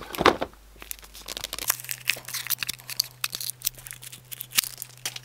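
Foil blind-pack wrapper crinkling and tearing as it is worked off a small plastic toy capsule, in many quick, irregular crackles.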